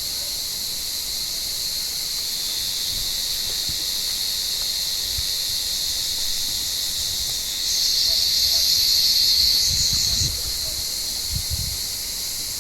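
Cicadas buzzing steadily in the olive trees. A louder, closer cicada joins about two-thirds of the way in, calls for a couple of seconds, then stops.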